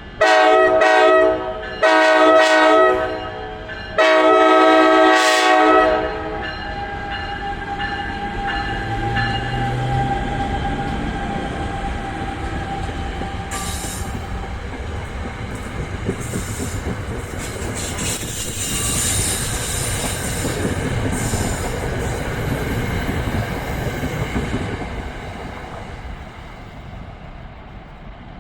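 NJ Transit train horn sounding three loud blasts, the last one the longest. The train then runs past with steady rail noise and wheels clacking over the joints, fading near the end.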